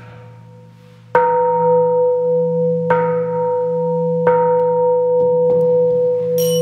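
Buddhist temple bell struck three times about a second and a half apart, each strike ringing on in a long, steady tone over a low hum. Near the end a higher-pitched small bell starts ringing in quick repeated strokes.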